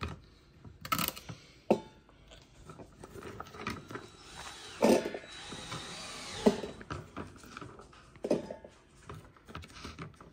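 Kitchen handling sounds as cut apple and celery are loaded into a blender jar: scattered clicks and knocks of the pieces and jar, with a short steady hiss about halfway through.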